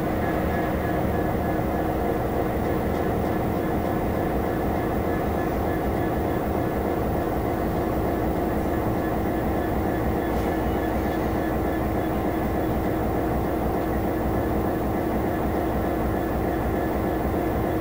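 Class 66 diesel locomotive's EMD two-stroke V12 engine running steadily, heard from inside the cab as the train rolls slowly, with a constant rumbling drone and a thin high whine over it.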